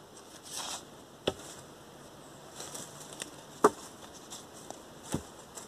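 Knife blade chopping into a wooden branch: three sharp knocks about a second and a half apart, the middle one loudest, with scraping and rustling between strokes.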